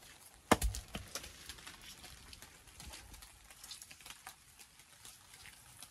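Stone knocking on stone during dry stone walling: one sharp knock about half a second in, then scattered light clicks and taps as stones are shifted.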